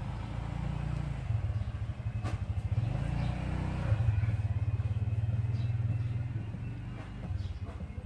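An engine running, a low rapid pulsing that swells in the middle and eases off toward the end.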